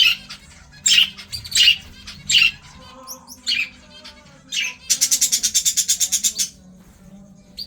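Aviary birds calling: short harsh squawks spaced about a second apart, then a rapid rattling run of about fourteen quick notes lasting a second and a half.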